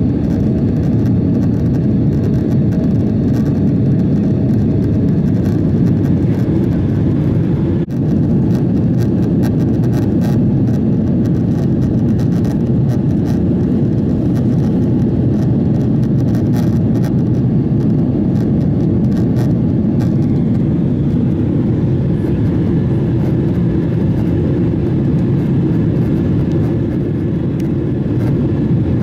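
Boeing 767-400 jet engines and rushing air heard inside the cabin as a loud, steady rumble, with a short click about eight seconds in.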